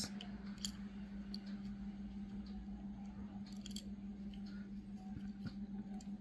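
Faint scattered clicks and rubbing as fingers handle and turn over a small die-cast toy car with a plastic base, over a steady low hum.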